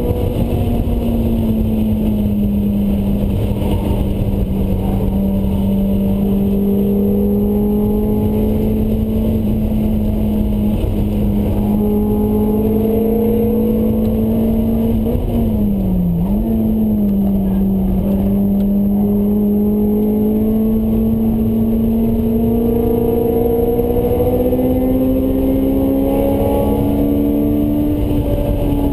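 Honda S2000's four-cylinder engine through a Mugen exhaust under hard load on track, heard from inside the cabin over road and wind noise. The engine note holds high and climbs slowly, dips briefly about halfway through, then rises steadily again near the end.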